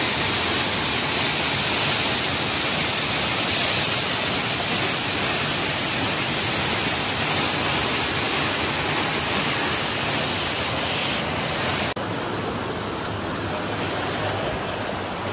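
Muddy floodwater rushing past in a fast torrent: a loud, dense, steady rush of water. About twelve seconds in it cuts off abruptly to a quieter, steady wash of floodwater flowing along a street.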